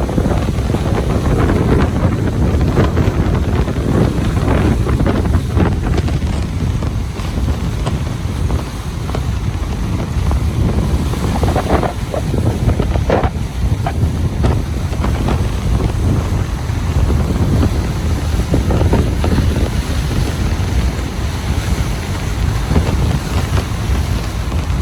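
Ocean surf washing onto a beach, with strong wind buffeting the microphone as a steady low rumble. There are a few brief splashes about halfway through.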